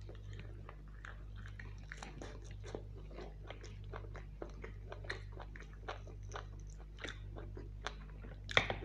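Close-miked chewing and biting of mutton curry eaten by hand: a run of small wet clicks, smacks and crunches, with one sharper, louder crack near the end. A steady low hum sits underneath.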